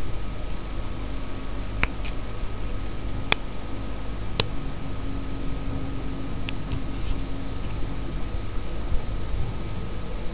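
Cicadas in pine trees, a steady high buzzing drone that pulses rapidly, over a low rumble.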